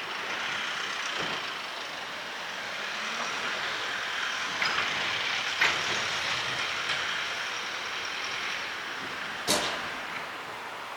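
Train running along the tracks: a steady rushing noise, with a few sharp clicks, the loudest about nine and a half seconds in.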